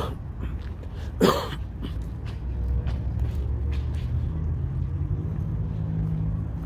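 A vehicle engine running at idle as a steady low rumble, with one short, loud hiss about a second in.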